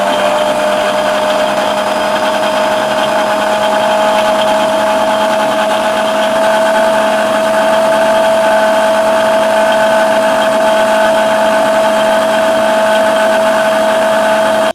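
Electric mixer-grinder (mixie) motor running at full speed, blending soaked almonds, banana and milk in the liquid jar into almond milk. It is a loud, steady whine that stops abruptly at the end.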